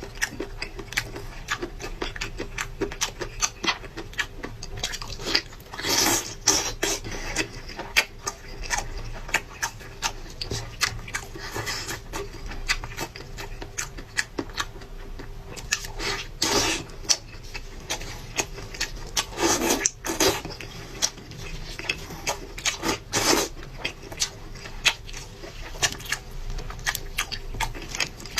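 Close-up eating sounds of a person eating skate: quick wet chewing and smacking clicks, with a few longer, louder mouth sounds.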